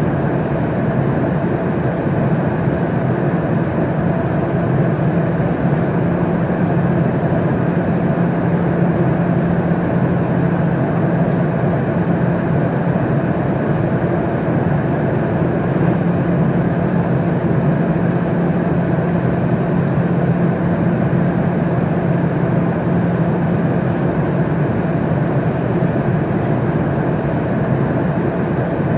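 Airplane cabin noise in flight: a steady, unbroken rush of air and engine noise with a constant low hum.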